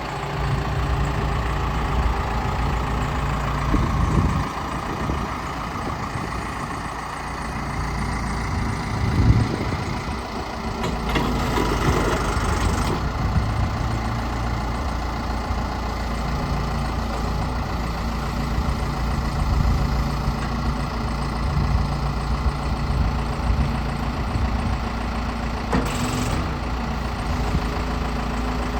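Case 580 Super L loader backhoe's four-cylinder diesel engine idling steadily, with a few brief swells in level along the way.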